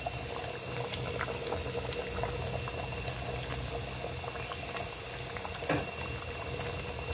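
Water boiling hard in a pot of whole crabs: a steady bubbling with many small pops.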